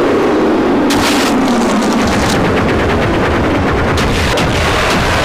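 Staged pyrotechnic explosions: a loud, continuous blast rumble broken by sharp crackling bangs, with the strongest cracks about a second in and again near the end.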